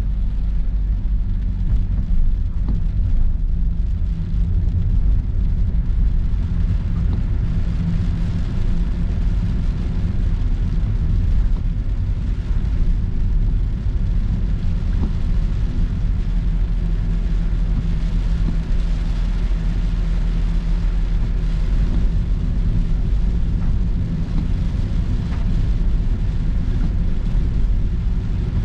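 Steady low rumble of a car's engine and tyres on a rain-soaked road, heard from inside the cabin, with a fainter hiss of water from the wet road over it.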